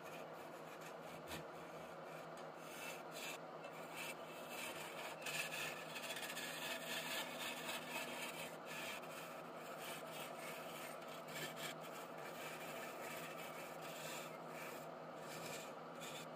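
Wood lathe spinning a wooden stair baluster while a hand-held turning chisel cuts along it: a steady rough scraping of the cut, over a low steady hum.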